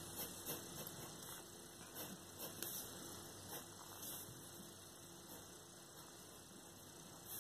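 Faint scratching and ticking of a fine-liner pen drawing short strokes on paper, most of it in the first half, over a steady low hum.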